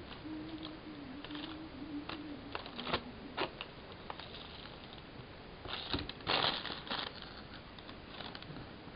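Small clicks and crinkling handling noises of food and paper wrapping, with a louder rustle about six seconds in. A faint low wavering hum stops about three seconds in.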